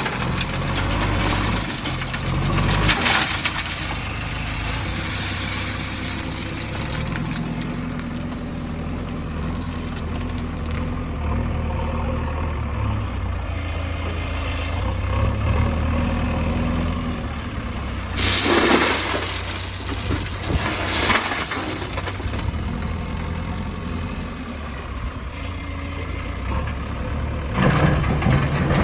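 Heavy diesel engine running steadily at a low, even note, with a few short louder noisy swells: one about three seconds in, two close together about two-thirds of the way through, and another near the end.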